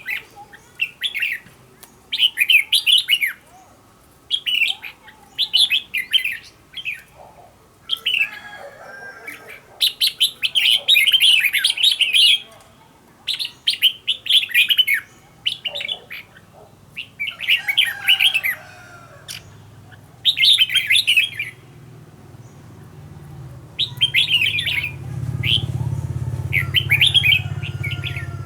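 Red-whiskered bulbul singing: a string of quick, warbling song phrases, each a second or two long, with short pauses between them. A low hum joins in near the end.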